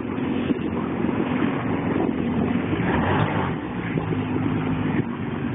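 Jet ski engine running as the craft backs away in reverse, a steady engine drone whose pitch shifts slightly about three seconds in.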